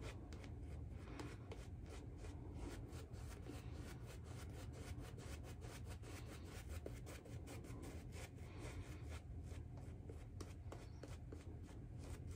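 Synthetic-knot shaving brush scrubbing soap lather on a stubbled face: faint, rapid, soft brushing strokes, one after another.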